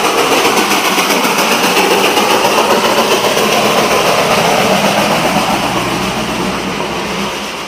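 Darjeeling Himalayan Railway steam locomotive passing close by, loud steam hiss with rapid chuffing, mixed with the engine of a passing bus; the noise eases slightly near the end.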